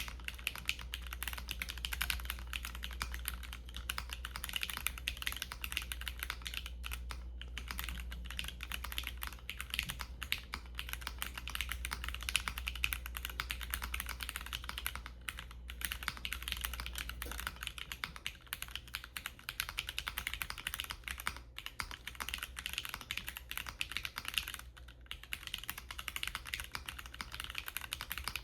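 Continuous fast typing on a KBDFans Agar Mini mechanical keyboard: a polycarbonate case with case foam, a carbon-fibre plate, Cherry Nixie switches and PBTfans X-Ray PBT keycaps. It is a dense stream of keystroke clacks with a few brief pauses.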